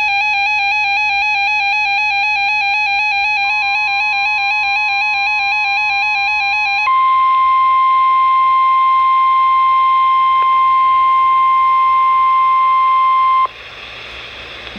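An electronic warbling alarm from a weather radio receiver, with the steady 1050 Hz NOAA Weather Radio warning alarm tone coming in under it. The warble stops about 7 seconds in and the warning tone carries on alone and louder. It cuts off sharply near the end, leaving a hiss of radio static.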